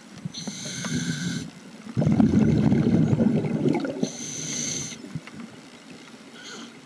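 Scuba diver breathing through a regulator underwater: a hissing inhale with a faint whistle, twice, and between them a longer low rush of exhaled bubbles.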